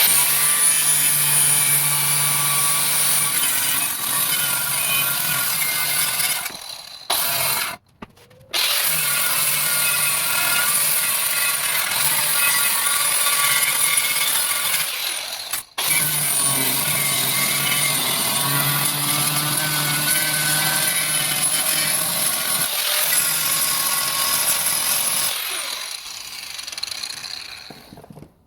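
Electric grinder grinding down a welded repair on a steel car bumper, running steadily. It stops briefly twice about seven and eight seconds in and cuts out for a moment around sixteen seconds, then winds down near the end.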